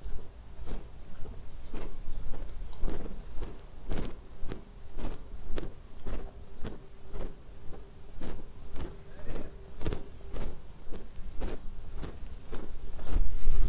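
Footsteps walking at a steady pace, about two steps a second, with a faint steady hum underneath.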